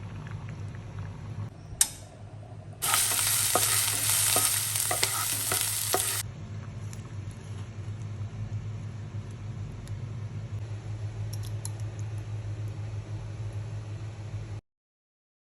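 Food frying in hot oil in a pan: a sharp knock, then a loud hissing sizzle with small crackles for about three seconds, which drops back to a quieter steady sizzle over a low hum.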